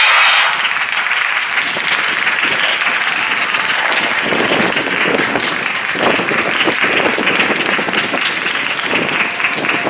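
Spectators clapping and cheering for runners in a 400 m race, starting suddenly as the race gets under way and going on at a steady level.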